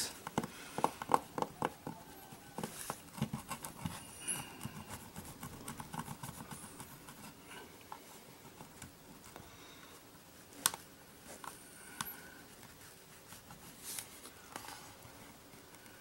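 Plastic spudger scraping and clicking against a laptop's plastic base as an adhesive-backed strip is pried off. A quick run of faint ticks and scrapes fills the first several seconds, then the clicks thin out, with one sharper click about ten and a half seconds in.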